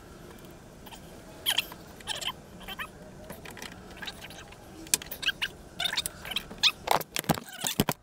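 Hands working wiring in an engine bay: scattered light clicks and rustles, coming faster and louder in the last few seconds.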